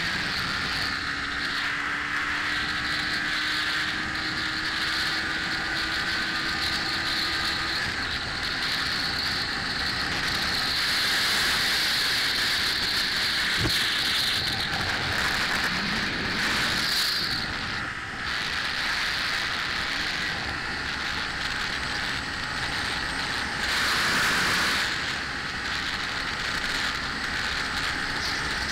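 Wind rushing over the microphone of a Yamaha TW200 motorcycle riding along a road at speed, with the engine's hum faintly beneath. The wind swells briefly a couple of times.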